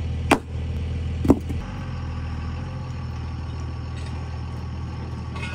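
Tow truck engine idling steadily, with two sharp metallic knocks in the first second and a half.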